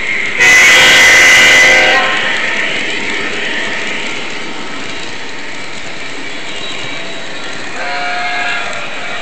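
O scale model diesel locomotive's onboard sound system blowing its horn loudly for about a second and a half, then the rumble of the locomotive and its freight cars rolling past on the track.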